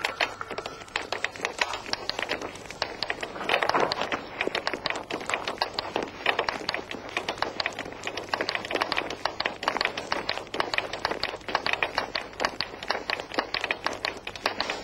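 Footsteps crunching through snow: a quick, irregular run of crunches, several a second.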